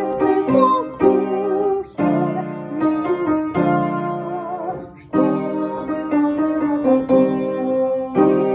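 Music on keyboard with electric-piano tone: sustained chords changing every second or two under a wavering melody line.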